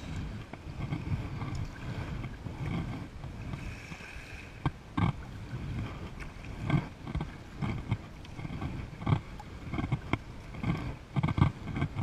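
Double-bladed kayak paddle strokes, the blades dipping and splashing into the water about every second, over a low rumble of wind on the microphone.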